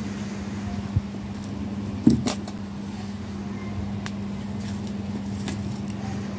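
A steady low hum runs under handling sounds at a metal charcoal grill: one sharp knock about two seconds in, then a few light clicks as sticks and charcoal are picked up and set down.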